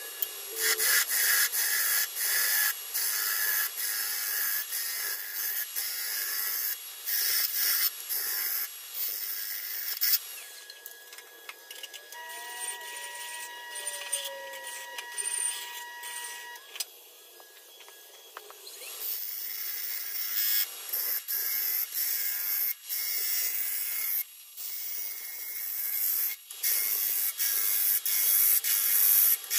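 A tool working a spinning figured walnut bowl on a lathe: hissing, scraping noise heard in short clips cut one after another. Midway there is a quieter stretch with a steady whine.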